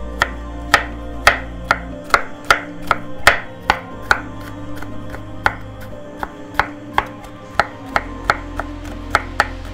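Chef's knife chopping garlic cloves on a wooden cutting board: sharp knocks of the blade on the board, about two a second in an uneven rhythm.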